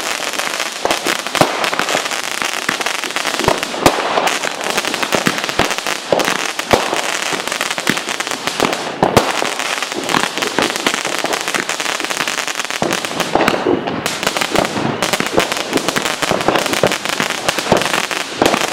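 Fireworks going off nonstop: a dense crackling with many sharp bangs scattered through it.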